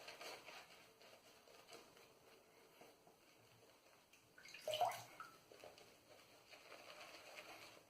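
Faint wet swishing of a boar shaving brush working shaving soap, with one brief louder wet squelch about five seconds in.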